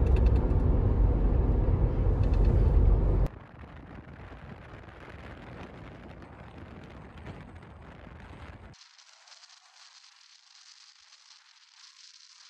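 Car cabin noise while driving at speed: a loud, steady low rumble of tyres and wind. It cuts off abruptly about three seconds in, leaving a much fainter hiss that thins further a few seconds later.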